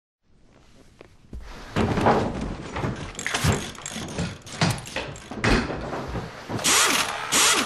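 A pit crew working fast: a rapid run of knocks, clunks and thuds, then three loud hissing rushes near the end.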